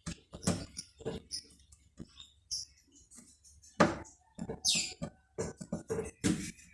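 A string of irregular clicks and knocks, with a few louder ones about four seconds in and again near the end.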